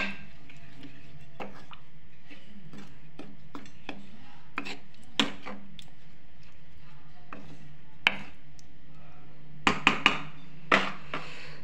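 Wooden spatula stirring thick chana dal in a metal kadhai, scraping and knocking against the pan. Several sharper knocks come about five and eight seconds in, and a quick cluster comes near the end.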